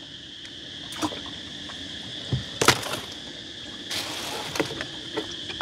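Half a dozen scattered knocks and thumps as fish and baskets are handled on the boat, the loudest about halfway through, over a steady high chirring of insects.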